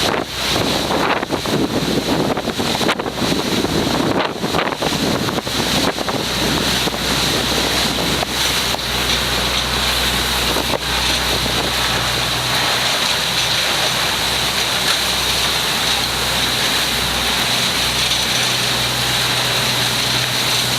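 Boat engine running at a steady hum, with wind buffeting the microphone in gusts over the first several seconds.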